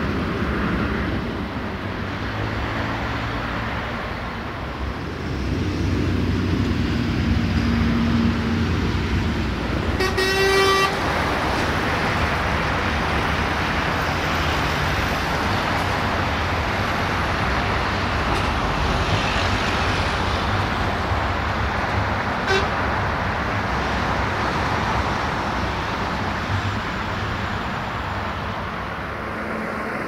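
Steady rumble of passing road vehicles, with one short horn toot about ten seconds in.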